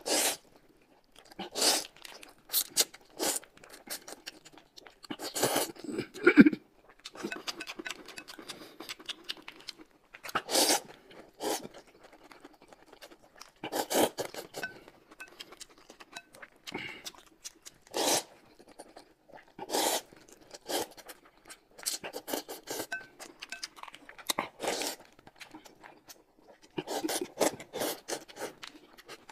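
Close-up eating sounds: noodles slurped from broth in short, irregular bursts, with chewing and the crinkle and tearing of small plastic snack packets being opened.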